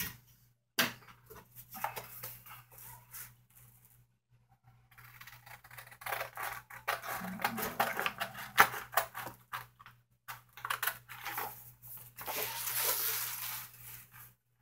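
Scissors cutting a large sheet of white paper: a run of sharp snips with the rustle and scrape of the sheet, in two busy stretches with a short pause between.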